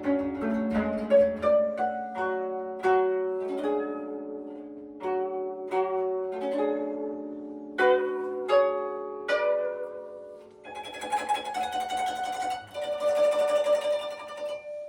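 Koto, the 13-string Japanese zither played with finger picks, playing a melody of single plucked notes that ring and fade. About ten and a half seconds in it breaks into a dense passage of rapid plucking.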